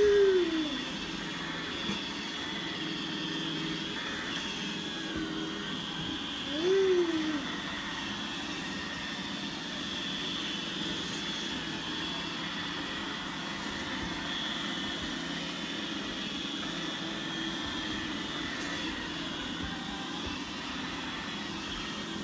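Roomba robot vacuum running, a steady motor whine and brush hum. Two short rising-and-falling voice sounds stand out, one at the start and one about seven seconds in.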